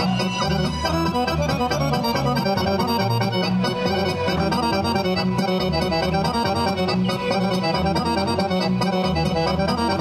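Traditional folk dance music led by an accordion, with a steady repeating bass line.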